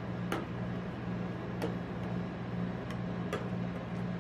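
Metal spatulas scraping and tapping on a steel cold plate while spreading rolled-ice-cream mixture thin, with about four sharp metal-on-metal clicks. A steady low hum runs underneath.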